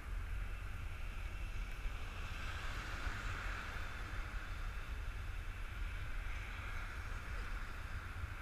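Wind buffeting a GoPro's microphone: an uneven low rumble throughout, over a steady hiss of outdoor background noise.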